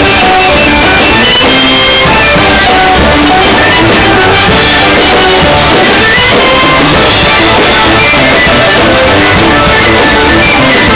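Loud band music played at close range: a clarinet and an alto saxophone carry the tune over a tuba and a drum, with many held notes overlapping and no pause.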